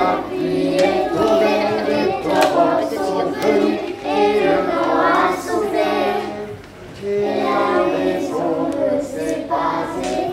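Children's choir singing together in unison, with a short break between phrases about two-thirds of the way through.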